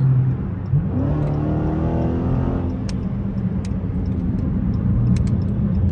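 Dodge Scat Pack's 392 HEMI V8 accelerating, heard inside the cabin: the engine note climbs about a second in, with a whine over it for a couple of seconds, then settles into a steady drone at cruise.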